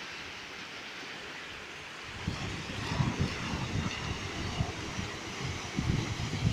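Wind buffeting the microphone: uneven low rumbles start about two seconds in, over a steady rushing noise.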